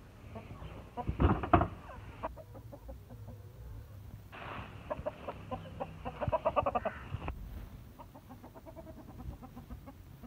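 Chickens clucking in quick runs of short notes, with a couple of knocks about a second in.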